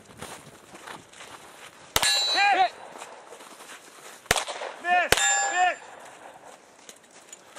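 Three shots from a Glock 23C .40 S&W pistol, one about two seconds in and two more a little under a second apart about four to five seconds in. Each is followed a moment later by the bright, ringing clang of a steel target being hit.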